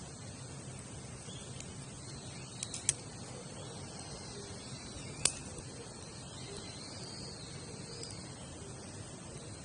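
Wood campfire burning, with a few sharp pops: two or three close together about three seconds in and a louder single one about five seconds in. Faint high chirps come in near the end.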